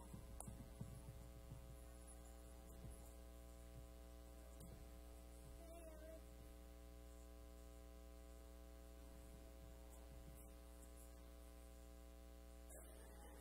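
Near silence filled by a steady electrical mains hum with a ladder of even overtones, and faint room noise under it.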